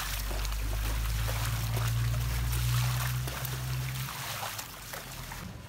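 Water pouring and splashing over freshly made rice noodles (khanom chin) in a plastic basket as a hand stirs and rinses them. A low rumble runs under the pour from about half a second in until about four seconds.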